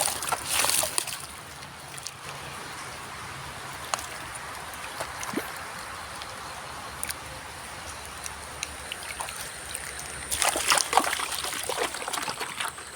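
Water trickling and sloshing as muddy toys are washed, with a few small knocks, turning to louder splashing near the end.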